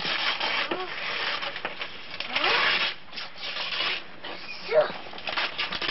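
Wrapping paper rustling and tearing as a child pulls it off a gift box, with a few short vocal sounds in between.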